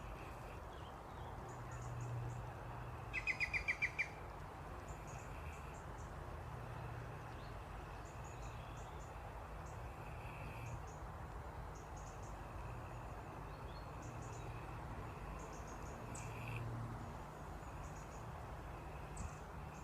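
A small pig snoring in its sleep, a low snore swelling every three to four seconds. About three seconds in comes a quick run of six high chirps.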